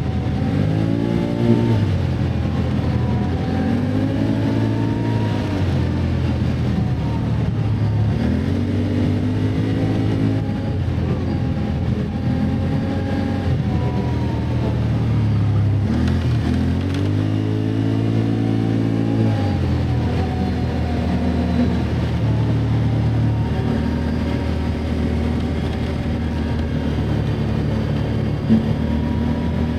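Can-Am ATV engine running under way, its revs rising and falling back about five times as the throttle is opened and eased, then holding steadier near the end.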